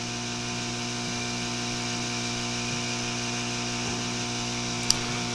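Sparkfun hot air rework station running with its air flow set to full: a steady hum with a hiss of blowing air. A small tick near the end.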